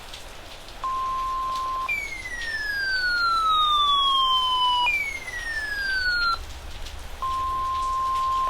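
Emergency alert tones opening a severe thunderstorm warning. A steady one-second beep comes about a second in, then two long siren-like sweeps falling in pitch, then the steady tone returns and holds from about seven seconds in.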